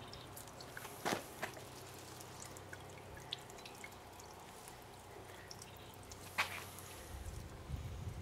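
Water jets of a small solar-powered hippo fountain falling and dripping onto pebbles, with scattered small drips and two louder splashes, one about a second in and one about six and a half seconds in. A low rumble builds near the end.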